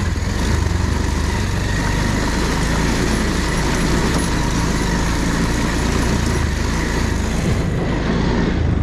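Motorcycle engine running steadily while the bike rides slowly over a rocky dirt track.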